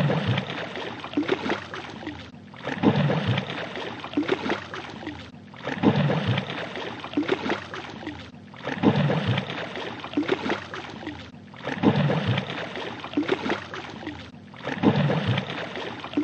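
Fish splashing in water: a sudden splash about every three seconds, six in all, each trailing off into churning, lapping water before a brief gap.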